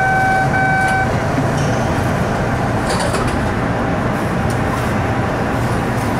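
MBTA Red Line 01800-series subway car running, a steady rumble of wheels and motors heard from inside the cab. Two short electronic beeps sound in the first second.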